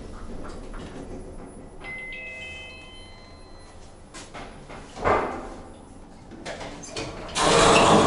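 Passenger lift arriving: an electronic chime of several steady tones sounds about two seconds in, and a brief loud noise follows about five seconds in. Near the end the lift's doors slide open with a loud rush of noise.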